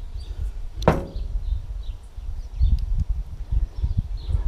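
A single sharp metal clank about a second in, as steel parts are handled on the haybine's sickle bar while a sickle section is swapped. The clank rings briefly, and a low fluctuating rumble runs underneath.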